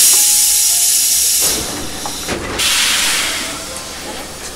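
Compressed air venting with a loud sudden hiss from a standing Tobu 850-series electric train's pneumatic system. A second, softer blast follows about two seconds in and fades.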